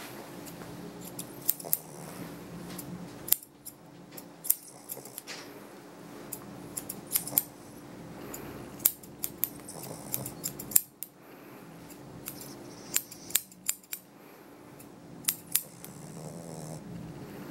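Grooming shears snipping a dog's facial hair: crisp, irregular snips, a few at a time with short pauses, over a faint steady hum.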